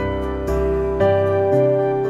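Soft, slow background music: sustained keyboard-like notes with the chords changing about every half second to a second.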